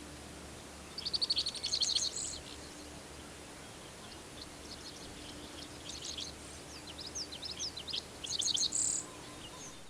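Songbirds singing: a rapid trilled phrase about a second in, scattered short chirps in the middle, and another quick trill near the end.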